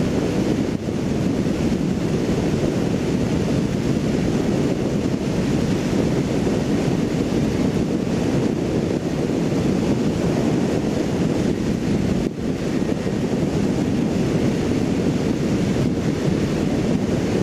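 Steady wind rush over the microphone of a motorcycle riding at highway speed on a wet road, a dense low noise that does not change.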